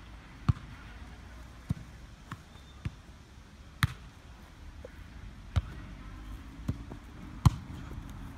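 Football being kicked and bouncing on grass during a foot tennis rally: a string of sharp thuds about a second apart, the loudest about four seconds in and again near the end.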